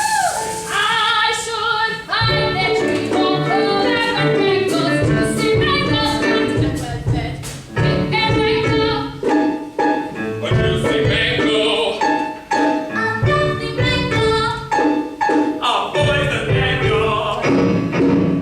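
Stage musical number: voices singing over instrumental accompaniment with frequent percussive strokes.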